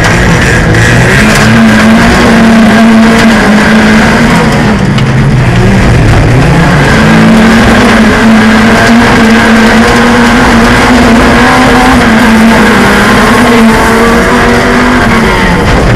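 Autocross race car's engine heard from inside the cockpit, held at high revs under load, its pitch dipping and recovering a few times around five seconds in and falling again near the end, over a loud, constant noisy rush.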